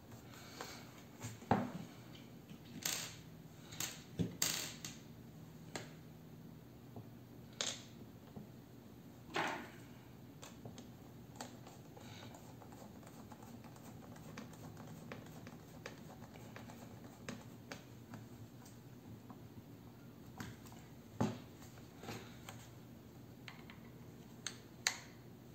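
Plastic housing of a hand blender being handled and reassembled: irregular clicks and knocks as the plastic parts are fitted and tapped together, with a small screwdriver turning a housing screw.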